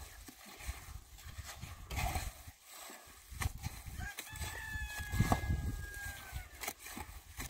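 A trowel scraping and chopping through wet cement mortar in a metal wheelbarrow, in repeated knocks and scrapes. A rooster crows once in the background from about four seconds in, one long held note of about two seconds.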